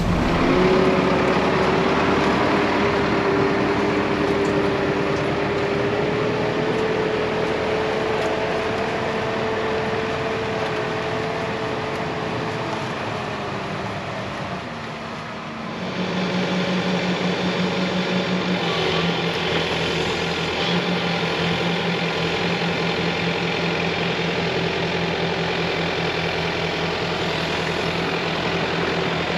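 Diesel engine of a heavy machine running steadily, with a whine above the engine note. About halfway through the sound shifts abruptly to a slightly different steady engine note.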